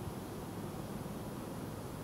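Steady low rumble with a faint hiss of open-air background noise; no gunshot.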